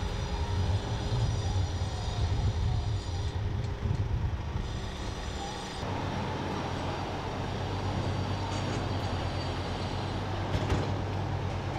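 A motor vehicle's engine running steadily with a low hum; the sound changes a little about six seconds in.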